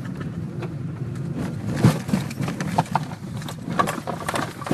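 Car driving on a rough, potholed road, heard from inside the cabin: a steady low road rumble, then irregular knocks and thumps from about two seconds in as it jolts over the holes, the loudest thump first.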